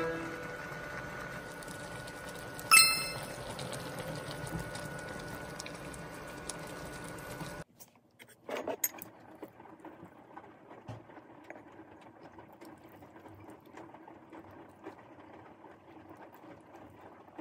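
Pot of mala stew with glass noodles cooking on the stove: a steady bubbling hiss with a faint high hum, and one sharp ringing clink about three seconds in. After a cut, much quieter, with a few light taps of dishes.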